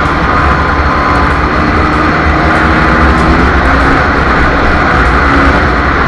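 Yamaha WR250R single-cylinder four-stroke dirt-bike engine running steadily while under way, mixed with loud wind noise on the handlebar camera's microphone.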